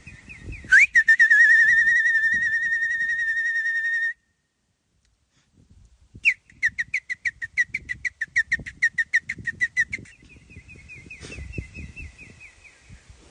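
High whistled trill held for about three seconds, then after a sudden break a fast run of short whistle pulses, about seven a second, and a softer stepped whistle near the end. Low scuffs sound underneath as a bull paws and horns the dirt.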